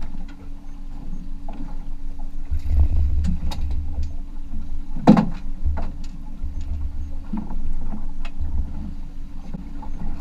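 Small boat's Mercury outboard running with a steady low hum, wind buffeting the microphone, and scattered clicks and knocks from the rod and boat. A single brief loud sound comes about five seconds in.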